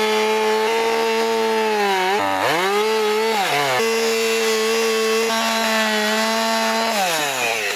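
Gas chainsaw running at high revs under load, ripping lengthwise through an oak log in a chainsaw mill with a freshly sharpened chain. The revs dip sharply twice, around two and three and a half seconds in, then fall away near the end as the throttle comes off.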